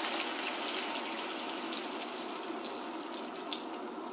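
Heavy whipping cream poured into a hot pan of diced chicken cooking in butter: a steady sizzle with small crackles and the pouring stream of liquid, slowly easing off.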